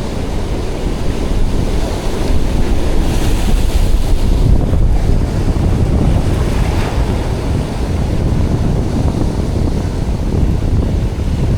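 Strong wind buffeting the microphone over the steady wash of surf breaking on the shore, with a brief surge of hiss about three seconds in.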